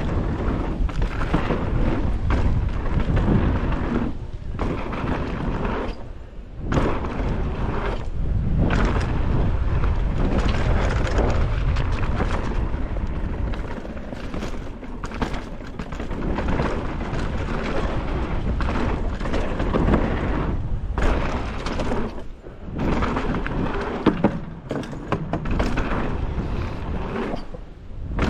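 Wind buffeting the camera microphone, with thuds and rattling from a mountain bike riding fast down a rough downhill trail.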